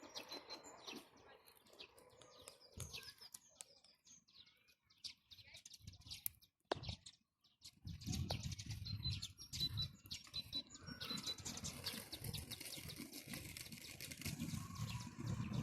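Small birds chirping in short repeated high notes, over quiet sticky clicks and squelches of freshly made white glue slime being handled and pulled.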